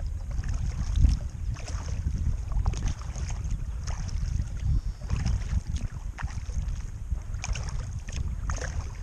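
Kayak paddle blades dipping into calm water, with repeated small splashes and drips every half second or so. A steady low rumble of wind on the microphone runs underneath.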